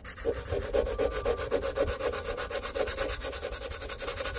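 600-grit emery cloth rubbed by hand over a chrome side-mirror housing in quick, even strokes, sanding down the edge of the peeling chrome.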